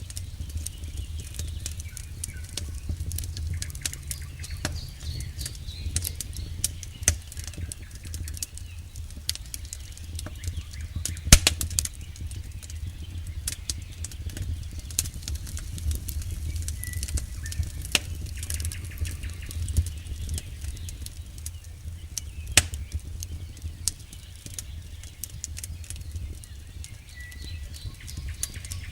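Wood campfire burning: firewood crackling with frequent sharp pops, the loudest about eleven seconds in and another about twenty-two seconds in, over a low steady rumble of the flames.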